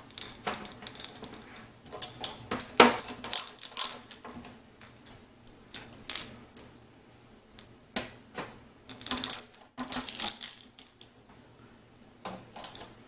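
Screwdriver turning screws through the PC case's top fan grille into an exhaust fan's frame: irregular bursts of clicking and scraping with short pauses, the sharpest click about three seconds in.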